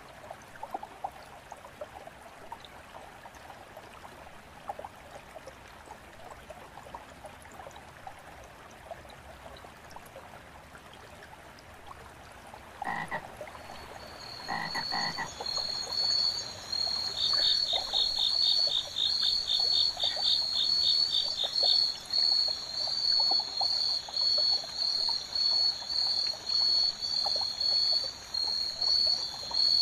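Summer-night ambience: a stream trickles softly, a frog croaks twice about halfway through, and then insects start a loud, high, pulsing trill that carries on to the end.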